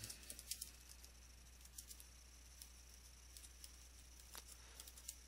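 Faint computer keyboard typing: scattered, irregular key clicks over a low steady hum.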